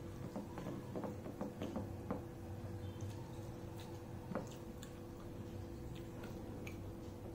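Fingers mixing and squeezing rice and curry on a dinner plate, making faint scattered clicks and soft squishes, over a steady low hum.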